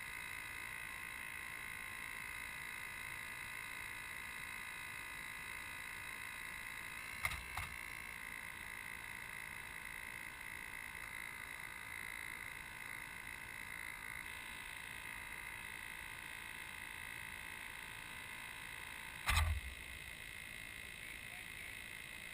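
Faint, steady high-pitched whine that holds one pitch throughout, broken by two brief knocks, one about seven seconds in and a louder one about nineteen seconds in.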